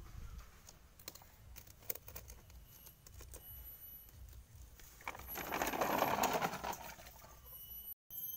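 Plastic toy dump truck pushed by hand along concrete, its wheels and body giving small scattered clicks and ticks. About five seconds in there is a louder two-second rush as the water in its tub spills and splashes out.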